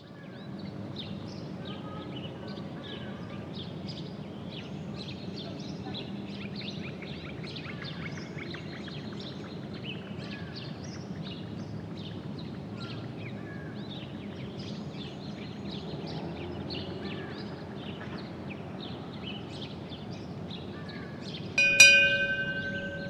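Birds chirping over steady low background noise, then a single chime struck near the end, ringing and slowly dying away.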